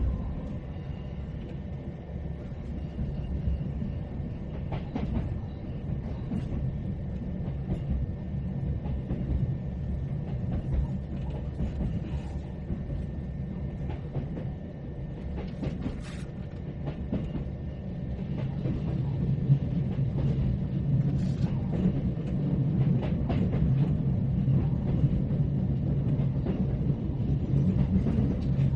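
Inside a moving train carriage: a steady low rumble from the running train, with scattered short clicks and knocks, growing louder about two thirds of the way through.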